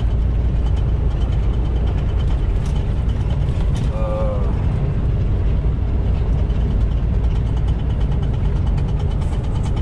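Inside a semi truck's cab at highway speed: the steady drone of the diesel engine and road noise, with faint light rattling ticks from the cab.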